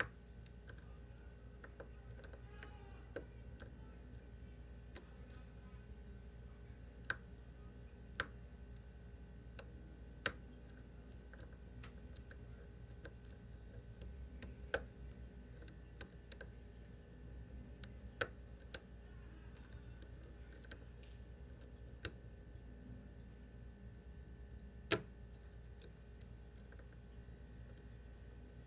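Lock pick working the pins of a Scorpion CX5 (Marks) pin-tumbler and slider lock: about a dozen small sharp metallic clicks at irregular intervals, the loudest near the end, over a faint steady hum.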